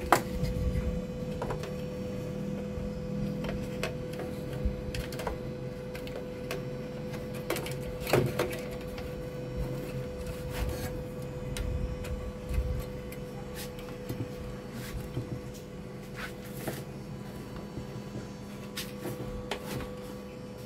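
Irregular clicks, taps and knocks of hands handling the circuit boards and wiring harness of an opened CRT television, over a steady hum.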